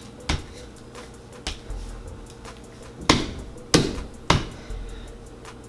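Steel leg of an IKEA Bror workbench being bashed to force a plastic foot cap onto its end: a few sharp knocks, the three loudest coming in quick succession a little after three seconds in.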